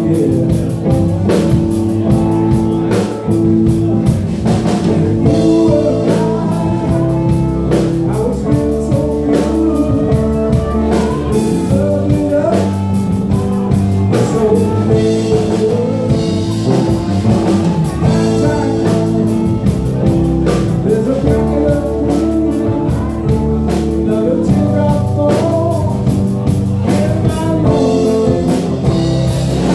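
Live blues-rock band playing, with electric guitar over a drum kit.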